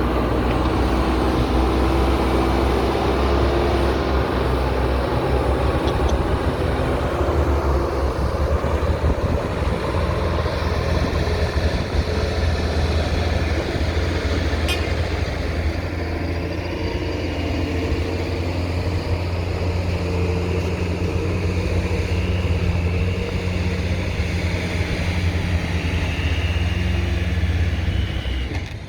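JCB backhoe loader's diesel engine running steadily under working load, with one sharp click about halfway through.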